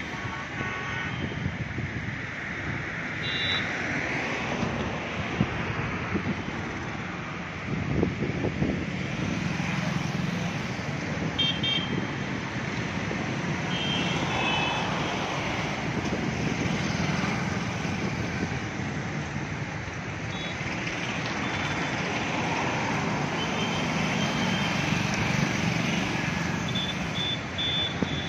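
Steady city road traffic, engines and tyres swelling as vehicles pass, with several short horn toots scattered through.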